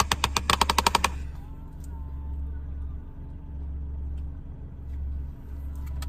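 Car engine being cranked by the starter: a fast run of about a dozen knocks for about a second, then the engine catches and settles into a steady low idle. It is started so that the plug-in car vacuum cleaner has power.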